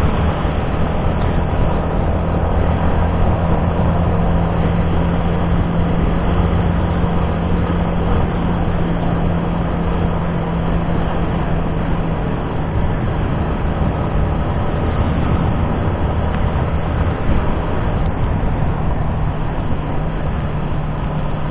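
Yamaha Sniper 155's single-cylinder four-stroke engine running at a steady cruise, heard together with wind and road noise on the bike-mounted microphone. The low hum holds even throughout.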